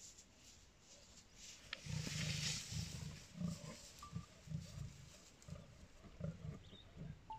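Lions growling: a run of low, rough pulses that starts about two seconds in.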